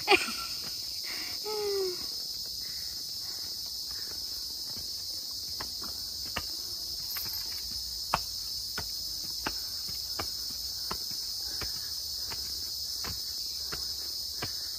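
A steady high-pitched insect chorus, with footsteps climbing stone or concrete steps as regular light clicks about two to three a second. A single sharp knock comes right at the start.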